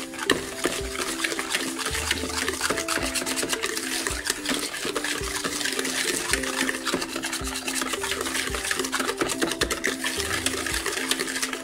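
Metal wire whisk beating egg yolks into a creamed butter and sugar batter in a bowl: rapid, continuous scraping and clicking of the wires against the bowl. Background music plays underneath.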